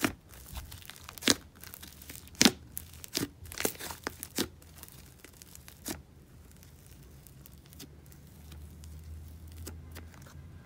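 Clear-glue snow slime with an icy, sizzly texture being stretched and squeezed by hand. It gives a string of sharp pops and crackles over the first six seconds, then goes much quieter.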